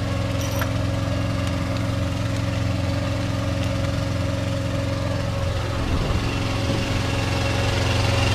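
Vehicle engine idling steadily, an even low hum.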